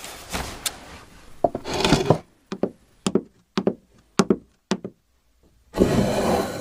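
Hurried handling of objects being put back into a drawer: rustling, then a quick run of about eight short knocks and clicks, then another burst of rustling near the end.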